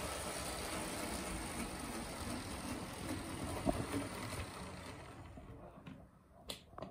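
Rivarossi model Mikado steam locomotive's motor and wheels running on the track as it pulls a rake of model coaches. The noise fades as the train slows to a stop about five to six seconds in, followed by a couple of light clicks near the end.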